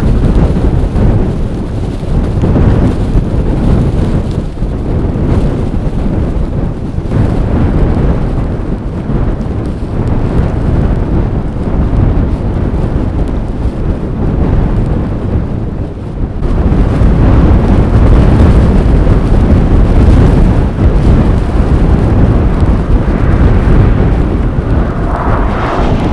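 Strong blizzard wind buffeting the microphone: a loud, gusting rumble that eases and surges, dipping briefly about two-thirds of the way through before coming back stronger.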